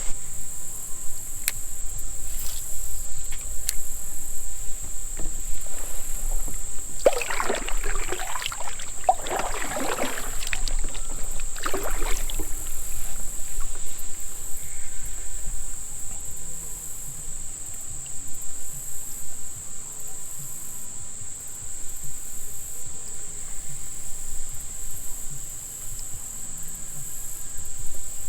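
Insects droning in a steady, high-pitched chorus, with a run of water splashes and knocks starting about seven seconds in and lasting some five seconds.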